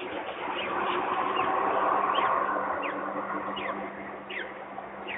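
Peregrine falcon chicks peeping: short, high cheeps that slide downward, about one a second. By the uploader's account, some of the calls come from a chick still inside its egg. A steady low hum runs underneath.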